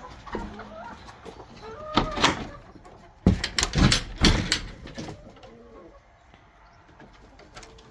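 Knocks and clatter of a wooden pen door, its latch and wire tie being handled: one knock about two seconds in, then several between three and four and a half seconds. A few faint bird calls sound in between.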